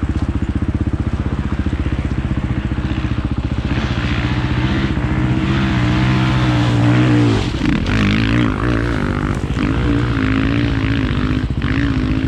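A single-cylinder KTM 500 EXC dirt bike engine idling close to the microphone. A second dirt bike's engine grows louder and rises in pitch as it approaches, and rides past about seven to eight seconds in.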